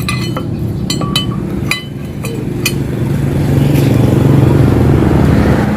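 A motorcycle engine running, building in level about halfway through, with a few sharp metallic taps in the first few seconds.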